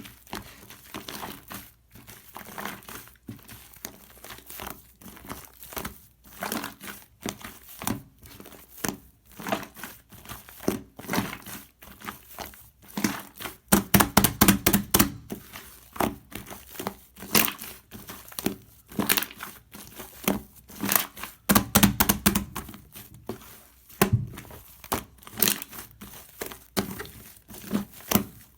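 Slime being squished and kneaded: a dense, irregular run of crackles and small pops, louder around 14 and 22 seconds in.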